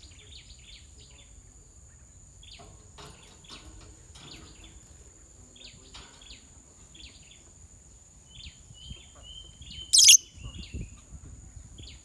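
Lovebirds chirping in short, rapid bursts, with one loud, shrill call about ten seconds in. A steady high insect whine runs underneath.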